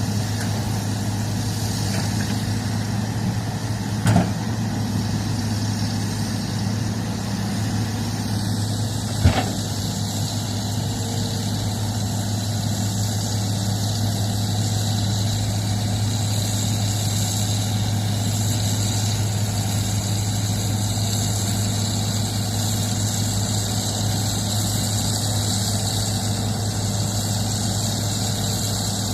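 Heavy earthmoving machine's diesel engine running steadily at a low, even hum, with two short sharp knocks about five seconds apart.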